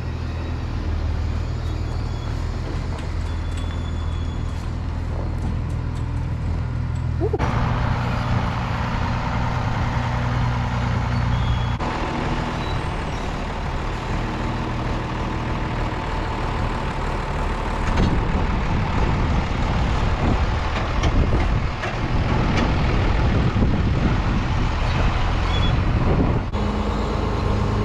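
Farm tractor engine running steadily while the tractor is maneuvered; about seven seconds in the sound grows louder and fuller, as if the engine is given more throttle, and it stays up after that.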